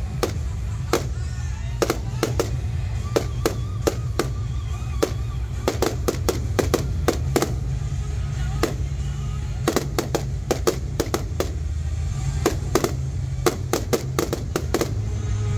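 Fireworks going off in a show set to music: many sharp bangs at irregular intervals, at times several a second, over music that plays throughout.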